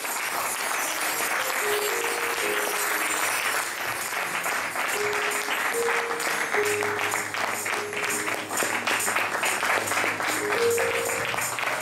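Congregation clapping along to instrumental church music, with held notes and a low bass line under the claps.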